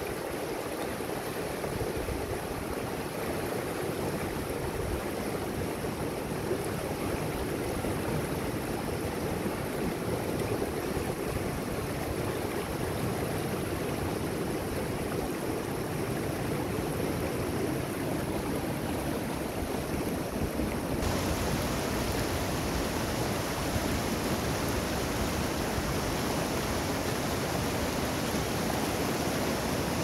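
Fast mountain river rushing through rapids over boulders, a steady rush of churning water. It turns brighter and hissier about two-thirds of the way through.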